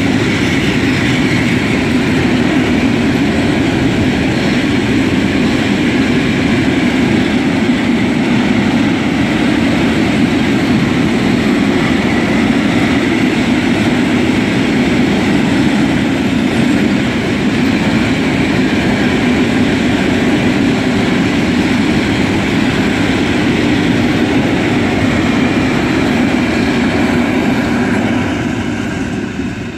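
Long freight train of loaded open coal wagons rolling past, a loud steady rolling noise of steel wheels on rail, fading near the end as the last wagons go by.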